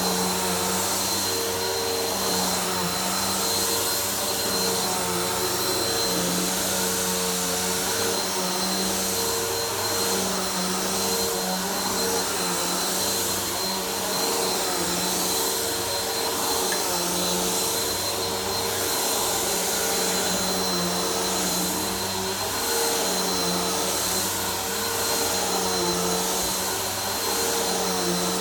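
Vacuum cleaner running steadily while vacuuming a floor, a constant high motor whine over airflow hiss, with slight wavering in the lower hum as it is pushed back and forth.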